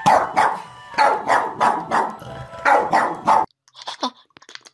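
A dog barking, about nine loud barks in quick succession, which cut off suddenly about three and a half seconds in.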